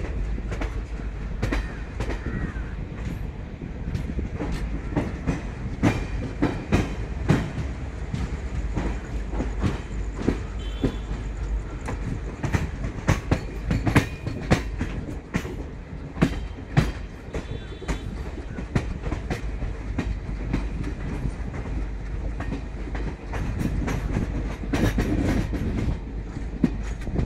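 Train wheels clattering irregularly over rail joints and points, over the steady rumble of the moving train, heard from aboard a passenger coach. The clicks come thickest in the middle stretch as the train crosses a set of points.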